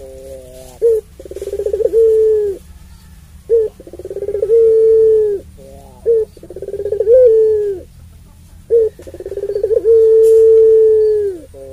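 Puter pelung, a long-voiced Barbary dove, cooing: a short note, then a long drawn-out coo held on one low pitch that drops off at its end. This happens about four times, and the last coo is the longest, at over two seconds.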